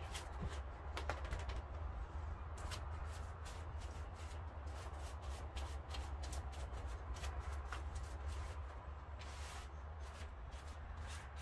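A paintbrush scratching and dabbing thinned spar varnish onto a carved wood surface, a run of faint, irregular scratchy ticks over a steady low rumble.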